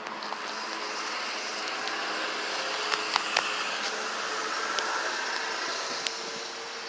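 Steady outdoor background noise, with a few short sharp clicks around the middle and one more near the end.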